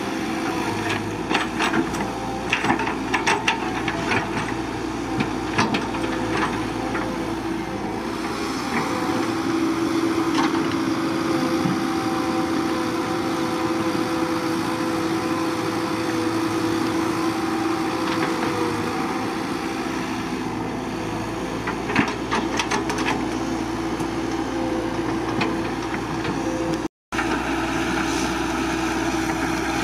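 CAT 312BL excavator's diesel engine running steadily with a constant hum, with scattered sharp knocks and clanks in the first few seconds and again past twenty seconds. The sound drops out for a split second near the end.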